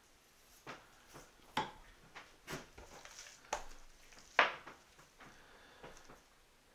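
A knife trimming raw beef on a plastic cutting board: scattered light clicks and knocks of the blade and handle against the board, with the loudest knock about four and a half seconds in.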